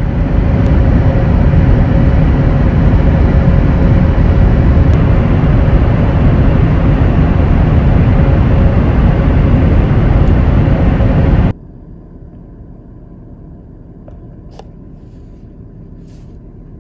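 2020 Toyota 4Runner driving at speed: loud, steady road and wind noise. About two-thirds of the way through it cuts off abruptly to a much quieter steady hum.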